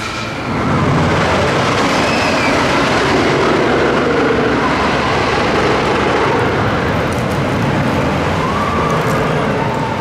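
GhostRider wooden roller coaster train running along its wooden track: a loud, steady rail rumble.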